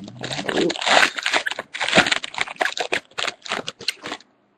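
A foil trading-card pack wrapper being torn open and crinkled by hand, a dense run of sharp crinkling and crackling that stops suddenly near the end.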